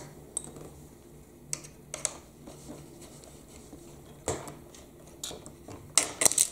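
Scattered small clicks and taps of a precision screwdriver and hands working on a plastic toy telehandler as it is taken apart, with a quick run of louder clicks near the end.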